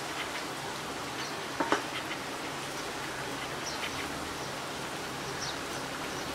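Pumpkin vade deep-frying in a kadhai of hot oil: a steady sizzle with small scattered pops. A metal slotted spatula knocks twice in quick succession about a second and a half in.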